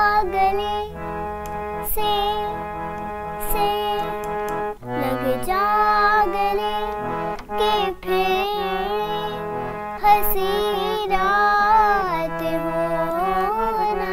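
A young girl sings a melodic song with bending, ornamented notes in several phrases with brief breaks between them. A harmonium accompanies her, sustaining steady notes underneath.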